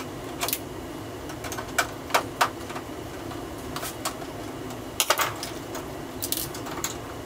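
Irregular sharp clicks and taps of a screwdriver and small plastic parts as the screws holding a small trap door are taken out inside a coffee vending machine's cabinet.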